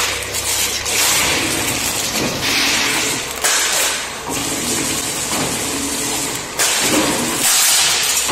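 Plastic wrapping film crinkling and rustling in irregular bursts as a packed stack of plastic cups is handled, over a steady low machine hum.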